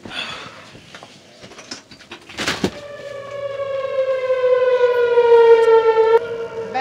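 Outdoor tornado warning siren wailing, its pitch slowly falling as it grows louder. A sharp clack about two and a half seconds in, just before the wail comes in.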